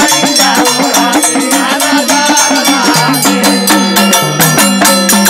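Instrumental passage of Bhojpuri dhobi geet folk music: held harmonium notes over fast, steady drumming on hurka drums, with bright percussive strokes throughout.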